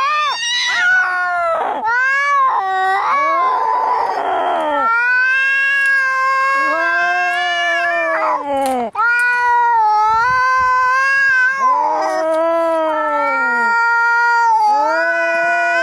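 Angry domestic cats caterwauling as in a cat fight: long, drawn-out yowls that rise and fall in pitch, one after another almost without a break, with a harsh hiss about four seconds in.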